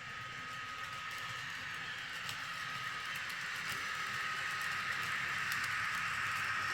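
N-scale model train running on its track and drawing closer: a thin, steady, high motor whine over wheel-on-rail hiss, growing louder, with a few faint clicks.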